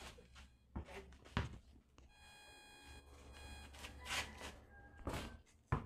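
A basketball bouncing on a concrete court: a handful of faint, irregularly spaced thuds.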